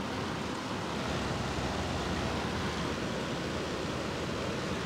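Electric fan running, a steady rush of air with no change in pitch.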